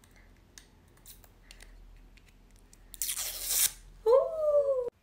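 Fingers clicking and crinkling faintly at a small pink plastic perfume compact, then a short loud ripping sound about three seconds in as its packaging is torn or peeled open. A woman then gives a drawn-out "oooh" that rises and falls in pitch and cuts off suddenly.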